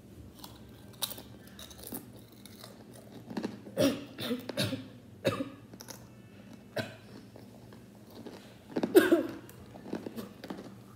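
A mouthful of kettle-cooked potato chip and hard pretzel piece being crunched and chewed, in irregular crunches that are busiest a few seconds in. About nine seconds in there is a short, louder vocal sound.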